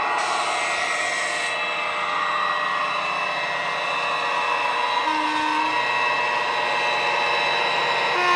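Model Class 68 diesel locomotive's ESU LokSound sound decoder playing a diesel engine running under power through its passive radiator speaker, with the model's motor and wheels underneath, growing slightly louder as the locomotive comes closer hauling its wagons.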